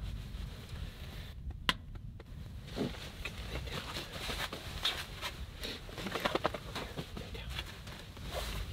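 Rustling of clothing and bedding with scattered light clicks and taps as a dog climbs onto a camp cot and is petted, over a low steady rumble.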